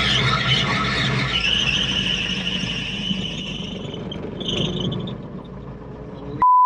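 Cabri G2 helicopter's Lycoming four-cylinder piston engine running as the clutch engages the drive belts and the main rotor spins up, with a high whine from the belt drive that fades out over about four seconds. A short, loud, steady beep cuts in near the end.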